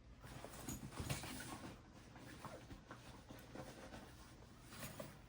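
Faint small clicks and light scraping of tweezers handling the pins and springs of a dimple lock being taken apart, busiest about a second in.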